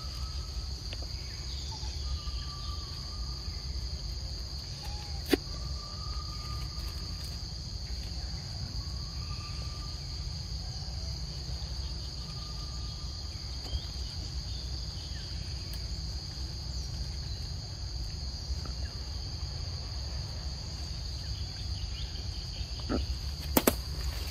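Steady, high-pitched drone of insects calling in the forest, over a low rumble. Faint short whistled calls come now and then, with a sharp click about five seconds in and a few clicks near the end.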